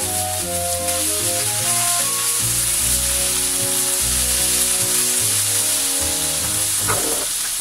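Bean sprouts, cabbage and other vegetables sizzling as they are stir-fried in a frying pan, under background music.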